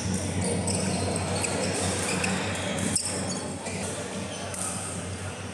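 Badminton rally in a large hall: racket strikes on the shuttlecock and players' shoes on the court mat, over a steady low hum. One sharp hit about three seconds in is the loudest.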